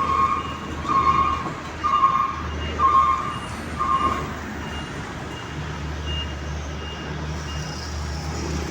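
A heavy vehicle's reversing alarm beeping about once a second, five beeps that stop a little over four seconds in, over the steady low running of its engine.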